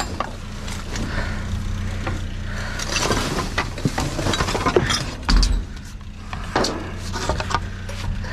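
Scrap being handled: repeated clinks, knocks and clatter of hard junk pieces, with a louder knock about five seconds in, over a steady low hum.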